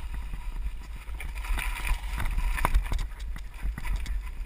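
Mountain bike descending a rough dirt singletrack, heard from an on-board camera: a steady low rumble of wind and vibration on the microphone, with frequent knocks and rattles as the bike jolts over bumps and roots, busiest in the middle.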